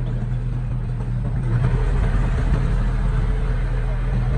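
Diesel engine of heavy earthmoving machinery running steadily, picking up a little load and getting louder about a second and a half in.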